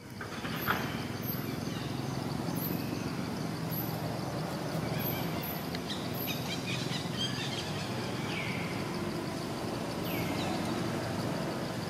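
Outdoor ambience: a steady background hiss with a steady high tone, scattered very short high-pitched chirps, and two falling calls near the end.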